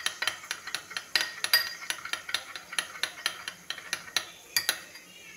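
A utensil clinks and scrapes against a small glass bowl while ketchup and mayonnaise are stirred together. Quick, irregular clicks come several times a second and stop shortly before the end.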